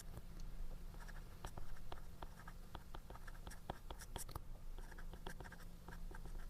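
Pen writing out an equation: faint scratching with many small irregular ticks of the tip on the surface, over a steady low electrical hum.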